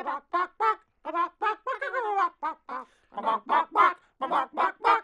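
Chicken-style clucking and squawking from the Robot Chicken character: a quick run of short pitched clucks with a few longer, drawn-out squawks, loudest in the second half.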